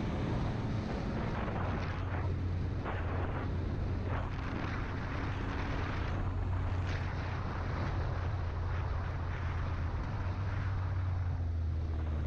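A vehicle's engine running steadily at road speed, heard from the vehicle itself, with wind and tyre noise over a low engine hum; the engine note shifts slightly near the end.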